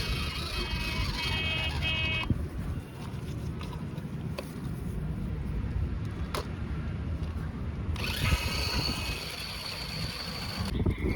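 Toy remote-control monster truck driving, its small electric motor whirring in two spells, for about the first two seconds and again from about eight seconds in, over a steady low rumble.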